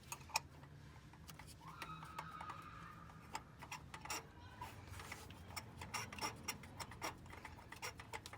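Light, irregular metallic clicks and taps, a few a second, from hand tools and engine parts being handled, over a low steady hum.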